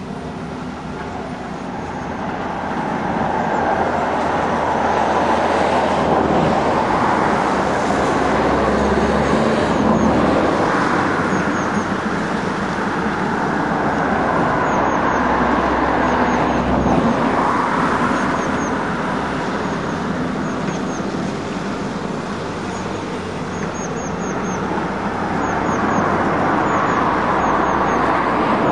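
Tracked hydraulic excavator's diesel engine running under load while it digs and moves soil, its sound swelling louder and easing off several times.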